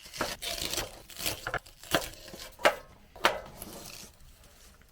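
Food being chopped on a cutting board: about six sharp, irregular knocks with rustling between them over the first three and a half seconds, then fading away.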